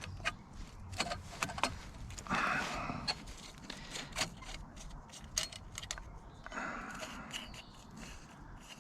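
A FitzBrick penny clamp being loosened and adjusted by hand: a run of small sharp clicks and taps from its fittings, with two short scraping slides about two and a half seconds in and again near the seven-second mark as parts are slid along.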